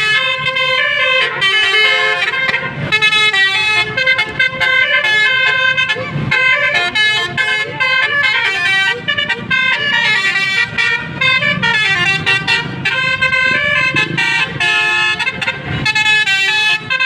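Loud Indonesian 'telolet' bus horn, a multi-note musical air horn, playing a quick tune of stepped notes over and over without a break.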